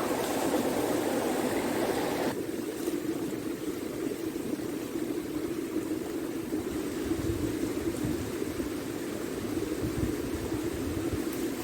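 Steady rushing of a flooded river. A brighter, wider hiss over it cuts off suddenly about two seconds in.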